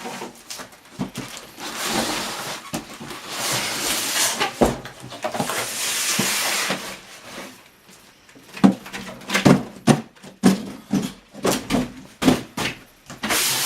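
Cardboard box and styrofoam packing scraping and rustling as a heavy computer case is turned and slid out, with a run of short knocks and thumps in the second half.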